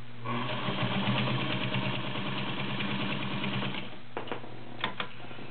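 Vintage White 565 all-steel sewing machine, with its 1.3-amp motor, running fast and steady as it stitches through six layers of denim with a size 16 needle, stopping after about three and a half seconds. A few light clicks follow near the end.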